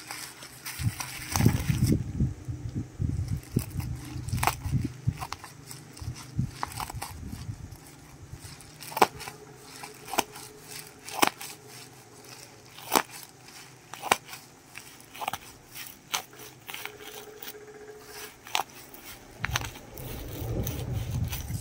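A black plastic bubble-wrap mailer crinkling as it is handled, then scissors cutting into it in a string of sharp snips about one every half-second to a second. The crinkling comes back near the end as the package is pulled open.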